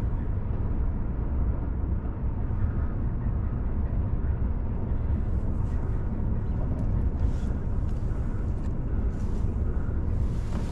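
Wind buffeting the microphone: a steady low rumble. From about halfway, faint light clicks and rustles of fishing tackle being handled as a sinker slider is threaded onto a wire leader.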